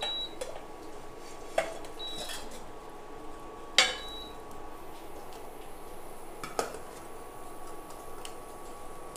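Stainless-steel spatula, pan and steel plate clinking as a cooked chickpea-flour pancake is slid off the pan onto the plate: a handful of separate metal clinks and taps, the loudest a little under four seconds in. Near the end a knife taps on the steel plate as the pancake is cut.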